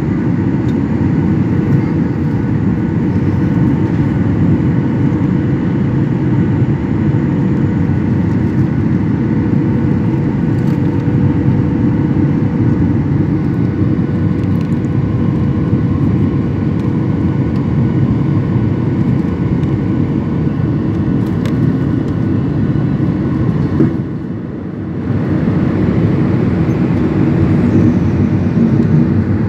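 Jet airliner cabin noise heard from a window seat over the wing during the climb after take-off: a steady, loud low rumble of engines and airflow with a faint steady hum. It dips briefly about 24 seconds in.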